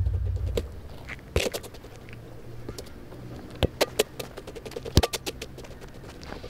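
A football being kicked and bouncing on a concrete court: sharp, separate knocks at uneven intervals, with lighter scuffs of shoes between them. The first half-second holds the fading end of a deep drum hit.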